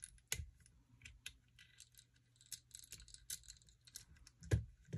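Small metal clicks and light rattling as the screw holding a universal fiber holder is undone and the holder lifted off a fusion splicer. A sharper click comes about a third of a second in and a dull knock near the end.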